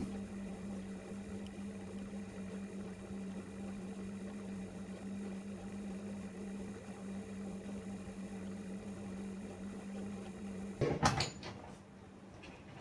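A steady low electrical hum, then a door shutting with a short clatter of knocks and clicks about eleven seconds in, where the hum stops.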